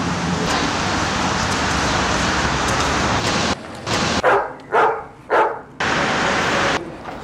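Steady street noise that cuts off suddenly, then three short dog barks about half a second apart, after which the noise returns briefly.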